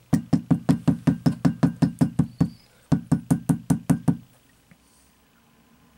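Metal hair stacker rapped down repeatedly to even the tips of a pinch of elk hair: quick sharp knocks, about eight a second, in two runs with a short break, stopping about four seconds in.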